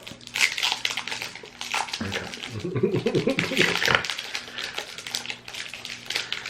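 Toffee-bar wrapper crinkling and crackling as it is handled and unwrapped, with a short laugh about two seconds in.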